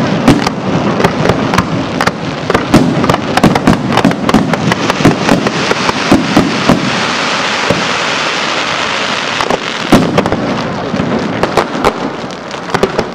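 Professional fireworks display: aerial shells bursting in quick succession, many sharp bangs close together, with a dense spell of crackling around the middle. The bangs thin out and the level drops near the end.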